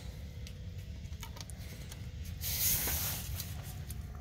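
Drip tubing being worked into a cut PVC pipe riser, with light handling clicks and a short hiss of air and spraying water a little over halfway through as air is blown through the tubing to push seeping water out of the pipe.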